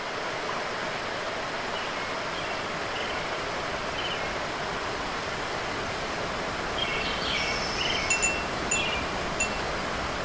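Wind chimes tinkling over a steady rushing hiss. The chimes are sparse and faint at first and grow clearer and more frequent in the second half, with a few bright strikes.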